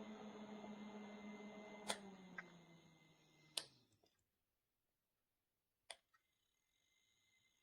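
A 140 mm USB PC fan winding down: its hum falls steadily in pitch and dies away about four seconds in, as after being switched off. A few sharp clicks come during and after the spin-down.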